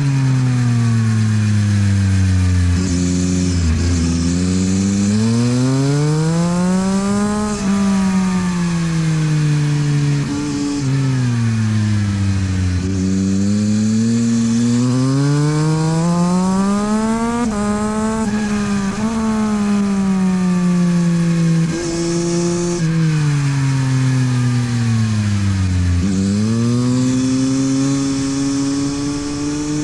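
Yamaha MT-09 SP's 890 cc inline-three engine through a LeoVince aftermarket exhaust, revving hard. Its pitch climbs under acceleration and falls away off the throttle, in three long cycles, with short steps in pitch as the gears change.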